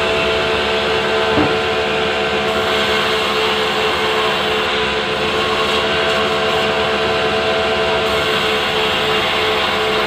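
Sawmill band saw running steadily, a constant hum with a high drone while a log is fed through the blade.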